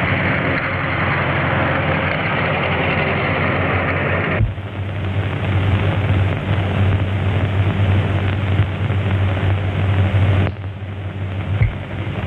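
A car driving along a road, its engine and road noise running for about four and a half seconds and then cut off suddenly; after that, lower steady noise, with a steady low hum underneath.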